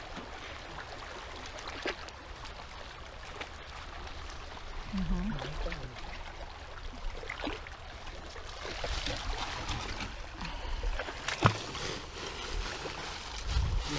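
Shallow seawater sloshing and trickling around a wading man's legs and a small outrigger boat, with water streaming off a mesh net bag of sea urchins as it is lifted out. A low rumble runs underneath, and a few sharp knocks sound, the loudest about three-quarters of the way through.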